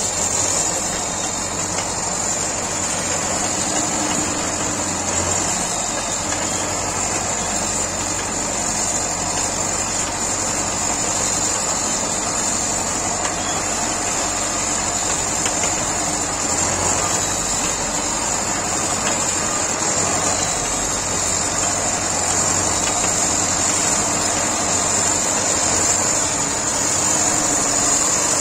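DT-75 crawler tractor's diesel engine running steadily as the tractor drives slowly over snow, with a steady high hiss over it.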